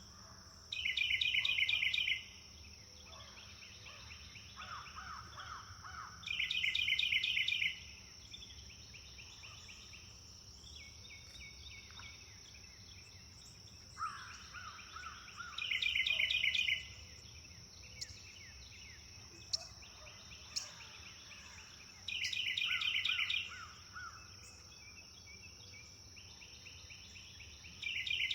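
Songbirds singing in a forest morning chorus: one bird repeats a loud, rapid trilled phrase about every five to six seconds, with softer lower-pitched trills and chirps from other birds in between, over a steady high-pitched drone.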